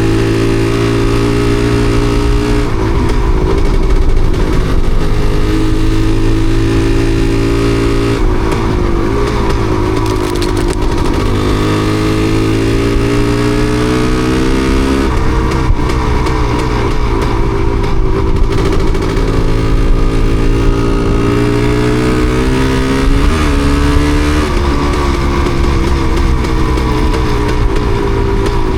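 Yamaha DT250MX single-cylinder two-stroke engine running under way. Its note climbs steadily and then drops back about four times, on a bike with a misfire.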